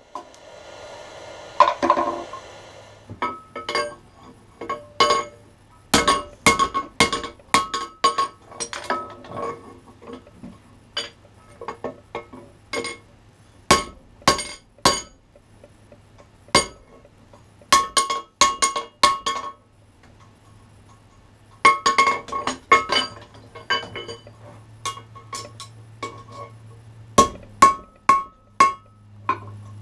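Hand hammer striking hot steel on an anvil, bursts of quick ringing blows with short pauses between them. A faint steady low hum runs underneath.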